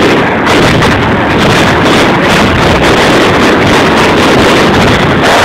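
Fireworks going off in a dense barrage, many shell bursts following each other several times a second so closely that they merge into a continuous, very loud rumble with crackle.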